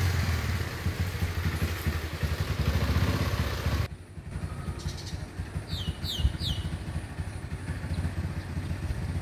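A motor engine running with a pulsing rumble that cuts off abruptly about four seconds in, leaving a quieter engine rumble. Three quick falling chirps come about six seconds in.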